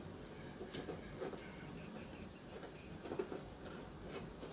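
Faint, scattered small metallic clicks and ticks as the carbon brushes and their springs are pressed into the brass holders on an electric jack pump motor's brush plate. The clicks are a few and irregular, the sharpest about a second in and just after three seconds in.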